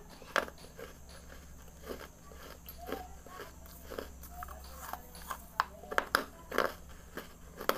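A person biting and chewing pieces of red clay, with sharp, irregular crunches and quieter chewing between them.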